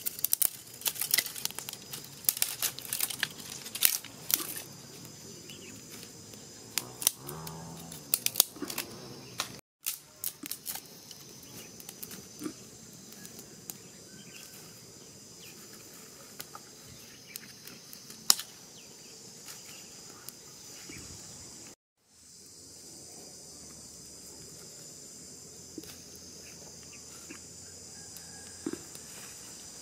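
Dry sticks, bark and leaves snapped and handled while a small campfire is built, with many sharp cracks and crinkles in the first ten seconds and only occasional ones after. A steady high-pitched insect chorus runs underneath, and the sound drops out briefly twice.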